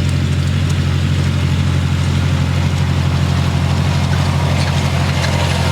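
Farmall 460 tractor engine running at a steady, even speed, loud and unchanging throughout.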